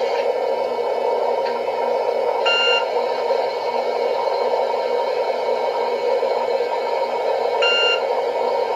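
Steady radio-like static hiss, muffled and narrow in range, with two short electronic beeps about five seconds apart.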